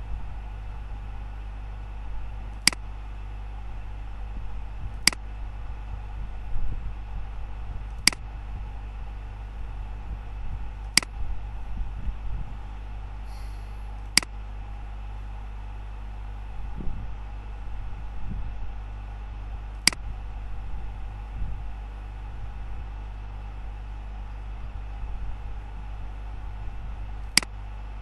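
Computer mouse clicking now and then, about seven single sharp clicks a few seconds apart, over a steady low hum.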